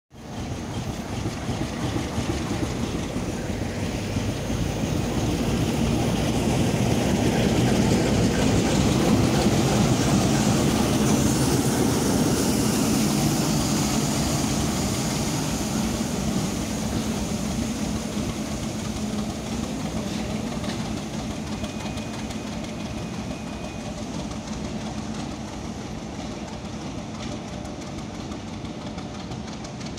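ChME3 diesel shunting locomotive's six-cylinder diesel engine running as it rolls by on a shunting move, growing louder to about ten seconds in and then slowly fading as it pulls away.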